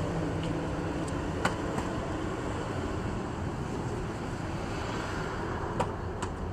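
Steady low rumble of street and traffic noise, with a few faint clicks.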